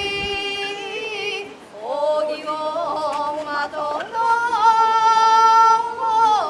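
Shigin, the chanted recitation of Chinese-style poetry that accompanies a kenbu sword dance: a single voice sings long held, wavering notes that bend between pitches. It pauses briefly about a second and a half in, then holds one long note through the second half before dropping away near the end.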